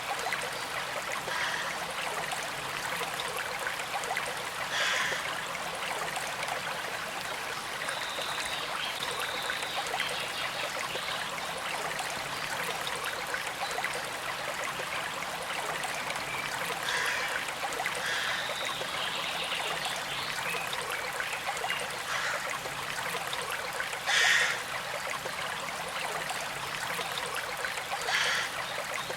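Shallow creek water flowing and trickling steadily over stones, with a few brief louder splashes, the loudest about 24 seconds in.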